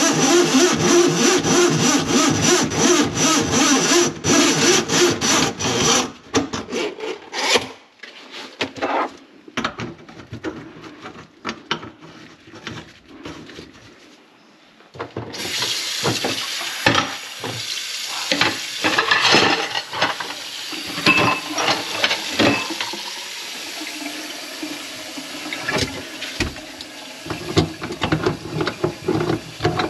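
Rapid rhythmic scraping strokes for about six seconds, then a few scattered knocks. About halfway through, water starts running into a kitchen sink with some clatter, and keeps running.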